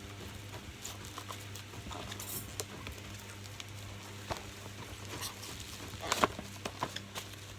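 Plastic bubble-wrap packaging being handled, making scattered faint crinkles and small clicks, with a slightly louder crackle about six seconds in.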